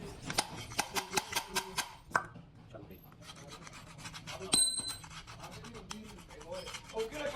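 Metal tools working on engine parts. There is a quick run of sharp, evenly spaced clicks, then fine scraping and clicking. About four and a half seconds in comes a single ringing metallic clink.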